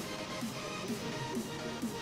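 Background music with a repeating beat, about two beats a second.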